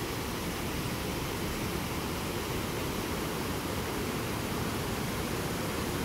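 Steady wind rushing and buffeting over a phone's microphone, a constant hiss with a fluctuating low rumble.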